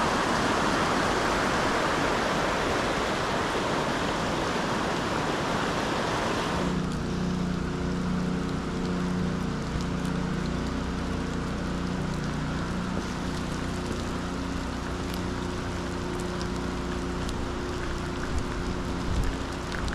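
Fast-flowing floodwater in a swollen creek, a loud steady rush of churning water. About seven seconds in it gives way to rain falling on a wet path, with a low steady hum underneath, scattered faint ticks and a couple of low bumps near the end.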